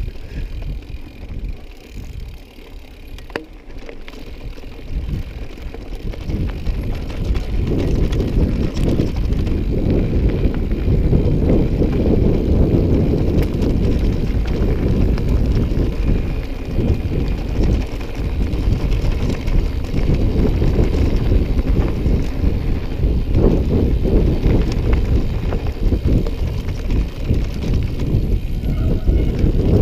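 Mountain bike rolling down a rough trail: a steady rumble of tyres on the ground with many small knocks and rattles from the bike. It is quieter for the first few seconds and grows louder from about six seconds in.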